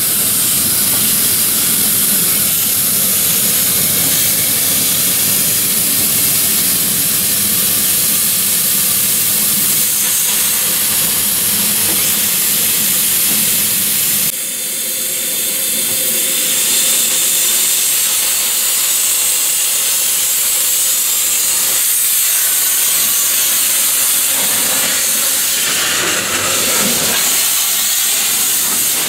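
Isle of Man Railway steam locomotive No. 4 Loch, a Beyer Peacock 2-4-0 tank engine, hissing loudly and steadily as steam escapes from it. About halfway through the deeper rumble under the hiss drops away, leaving a thinner, higher hiss.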